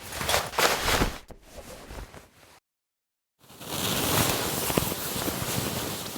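Fabric sound effects: several quick cloth swishes and rustles, a brief gap of dead silence, then a longer continuous rustle of fabric being rubbed or moved.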